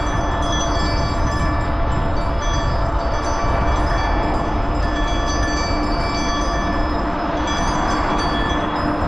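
Steady rumble of wind and rolling road noise from a moving bicycle ride, with short scattered whistling tones coming and going over it.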